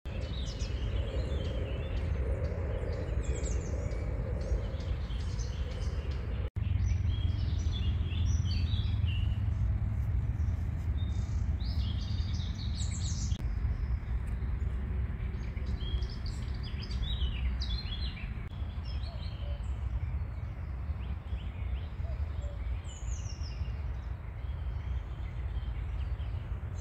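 Outdoor spring ambience: several songbirds singing and chirping, over a steady low rumble. A common cuckoo calls a few times in the later part, and the sound cuts out for an instant about six and a half seconds in.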